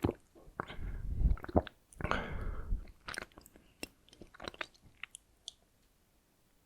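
Close-miked chewing of a mouthful of donut: soft, wet chewing over the first three seconds, then scattered small mouth clicks that die away after about two more seconds.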